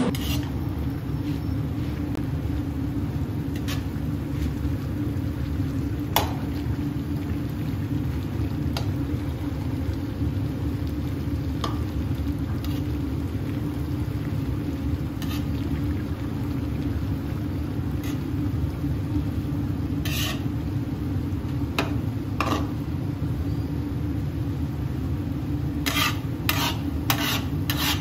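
Plov rice being stirred in a large pot, with occasional scrapes and clicks of the utensil against the pot and a quick run of them near the end, over a steady low rumble.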